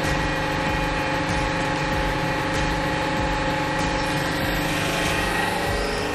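Hydraulic press's pump motor running with a steady hum of several held tones, and a few faint ticks.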